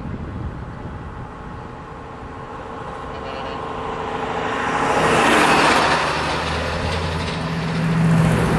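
Heavy diesel prime movers driving past close by, their engines and exhaust growing louder to a peak about five seconds in. Near the end one truck comes in on hard throttle with a deep steady drone, blowing thick black smoke from its stacks.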